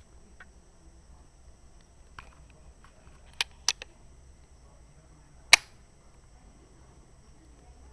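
A single sharp crack of a rifle shot, the loudest sound, a couple of seconds after two lighter sharp clicks about a third of a second apart, over a faint steady high electronic whine.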